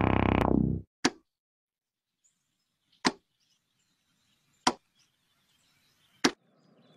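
Theme music ends just under a second in, followed by four single sharp hit sound effects, each brief with a short tail, spaced about one and a half to two seconds apart with near silence between.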